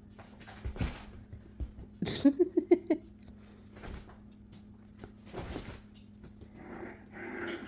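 Puppy giving a quick run of short yips about two seconds in, among scattered scuffles and knocks. A few softer whimper-like sounds come near the end.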